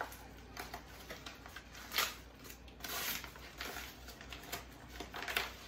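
Plastic packaging being torn open and crumpled by hand: soft crinkling with a few louder rips and rustles.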